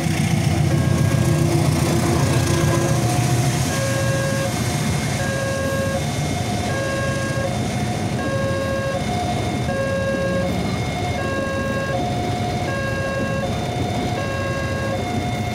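Railway level-crossing warning alarm sounding a repeating electronic chime of alternating tones, over the rumble and rolling noise of a passing passenger train. The low rumble is strongest in the first few seconds.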